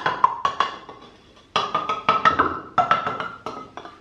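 Aerosol can of gel paint remover being shaken, the mixing ball inside rattling in fast, even clacks at about seven a second with a ringing note. It comes in two bouts, with a short pause about a second in, and stops just before the end.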